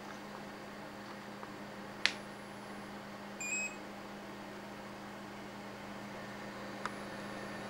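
PC case fans running steadily with a low hum, under the Arduino fan controller. A short electronic beep comes about three and a half seconds in, with a sharp click shortly before it and another near the end.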